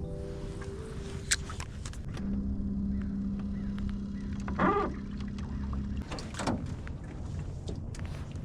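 Jon boat on the water: a steady low rumble, with a steady hum for a few seconds through the middle and a few sharp clicks and knocks.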